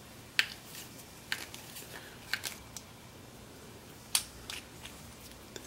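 A few scattered sharp clicks and light taps of a metal Allen wrench and hex screw being turned and handled in a small hardwood block, over faint room noise.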